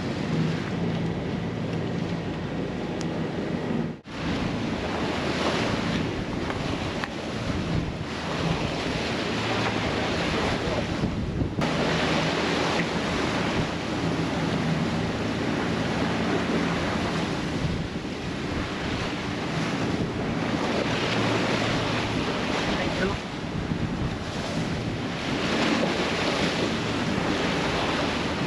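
Wind buffeting the microphone and waves rushing past a sailing yacht under way at sea, a steady loud rush with abrupt cuts about four and eleven seconds in.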